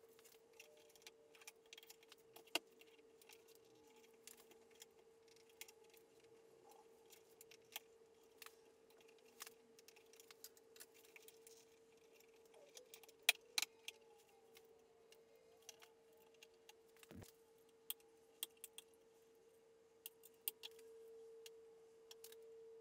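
Faint, scattered plastic clicks and taps as a BMW G20 3 Series side mirror glass is pried and worked loose from its housing with a trim removal tool and by hand, with a few sharper clicks about 13 seconds in. A faint steady hum runs underneath.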